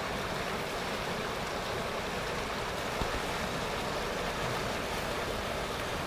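Steady rushing of fast-flowing stream water, a continuous even noise.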